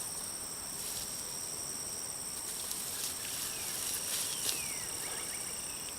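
Crickets chirring in a steady high-pitched chorus, with a few faint soft clicks and rustles.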